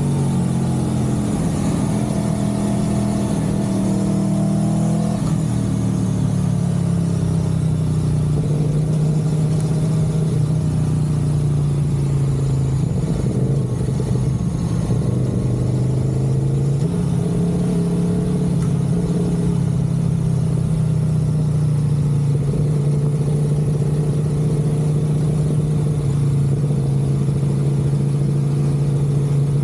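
Vehicle engine running while under way: its pitch falls in the first few seconds as it slows, steps down again a few seconds later, then holds fairly steady with a slight rise about two-thirds of the way through.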